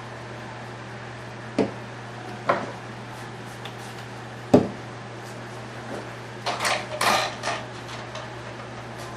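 Objects being handled and set down on a hard work surface: three separate knocks, then a quick run of clattering knocks near the end, over a steady low hum.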